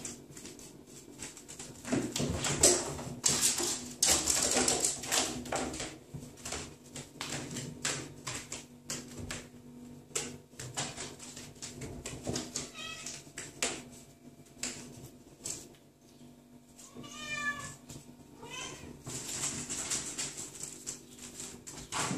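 Several cats scrambling after a laser dot on a hard wooden floor, their paws and claws skittering and knocking in quick irregular bursts. A few short meows come about two-thirds of the way through.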